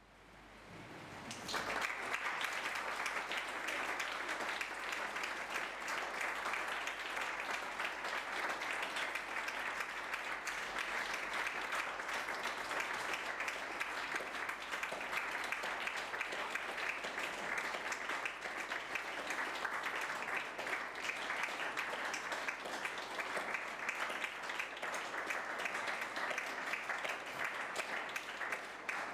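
Audience applauding, the clapping swelling in out of near silence over the first second or two and then holding steady.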